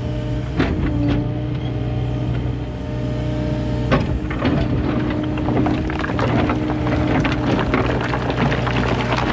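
Diesel engine of a tracked earthmoving machine running steadily, with a knock early on and rattling clatter of rock and shale being moved from about four seconds in.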